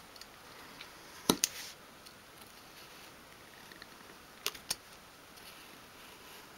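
Craft knife scoring thin sheet wood along the grain: faint scraping of the blade with a few sharp clicks, the loudest about a second in and two close together halfway through.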